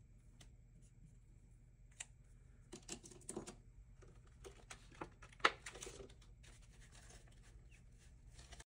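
Faint handling of paper: a marker scratching on a card, then binder pages and dollar bills rustling, with scattered light clicks and taps, the sharpest about five and a half seconds in. The sound cuts off suddenly near the end.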